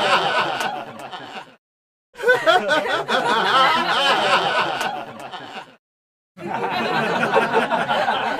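Laughter sound effects played one after another. One laugh fades out about a second and a half in; after a short silence a second laugh runs for nearly four seconds, and after another brief gap a third begins.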